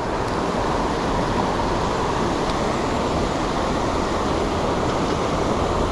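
Water rushing over a low creek dam in strong current: a steady, even roar of flowing water.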